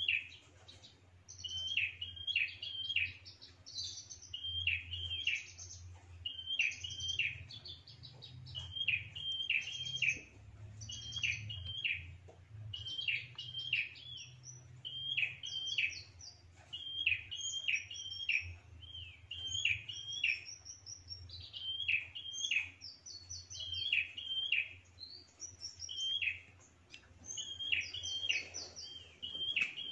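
A caged prenjak calling. It sings short phrases of three or four sharp, chirping notes, repeated about every second, with higher, trilling notes between them. This is the prenjak's territorial call, which trappers use as a lure to draw rival birds in.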